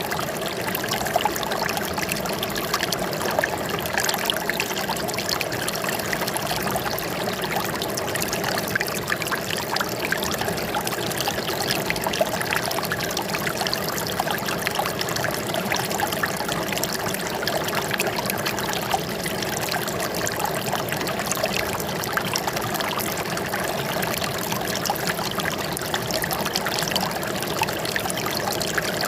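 Running water trickling and splashing at a steady level.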